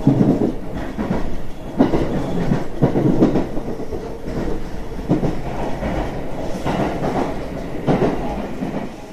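Train running along the track, heard from inside the carriage: a steady rumble with irregular wheel clacks over the rail joints about once a second.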